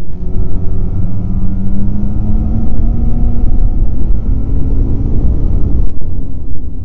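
Snowmobile engine running at speed along a trail, its pitch rising gradually over the first three seconds or so and then holding, over a heavy low rumble.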